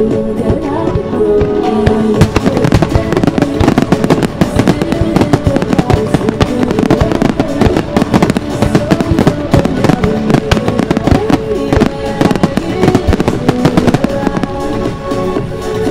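A starmine fireworks barrage: rapid, continuous shell bursts and crackle, with loud music playing along with the show.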